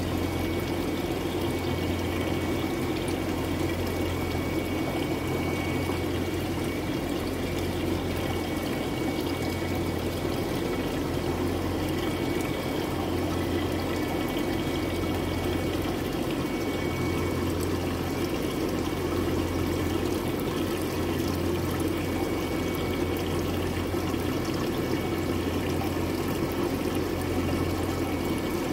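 Steady running water with a low hum from the circulation of a fish-rearing tank, water trickling and pouring without a break.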